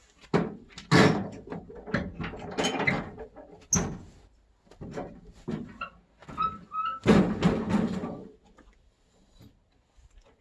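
Irregular series of heavy clunks, knocks and clattering from a truck camper's fittings being worked during unloading, with the loudest bangs about a second in and again around seven seconds in.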